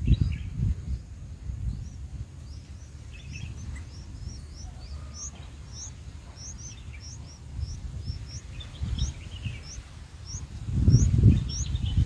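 Bulbul nestlings begging: thin, high cheeps repeated about twice a second, each a short upward flick, with a few lower chirps mixed in. A low rumble swells at the start and again near the end, louder than the calls.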